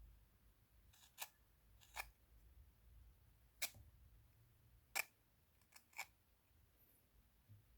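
A handful of light, sharp clicks or taps, about six, spaced irregularly a second or so apart over near silence.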